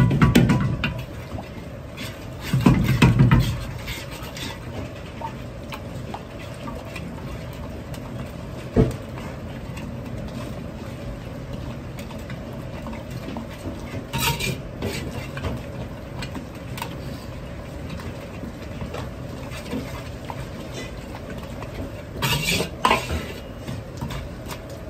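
A metal ladle stirring and scraping sha cha sauce in a large iron wok over a steady background noise, with sharp clinks of ladle against wok now and then. Two heavy low thumps come in the first few seconds.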